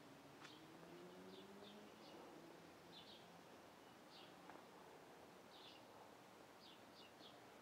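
Quiet night ambience: crickets chirping faintly in short pairs and triplets, every second or so. A faint low hum rises in pitch over the first two seconds, like a distant vehicle.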